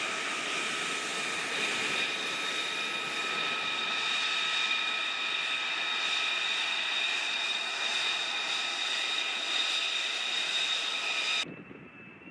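Taxiing F-35's jet engine running with a steady whine of several high tones over a rushing roar. Near the end it cuts abruptly to a fainter, more distant jet whine.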